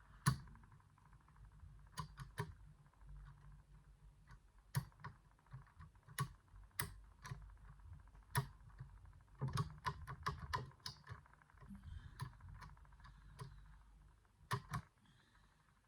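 Irregular light clicks and taps of a pick working the levers inside an 8-lever safe lock, lifting and dropping them; some come in quick clusters, others alone with pauses between.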